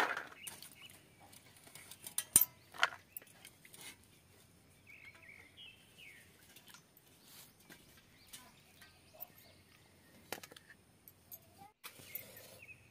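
A few sharp clinks and splashes from a steel bowl of water as cut vegetables are washed, the loudest right at the start, with chickens clucking and birds chirping faintly in the background.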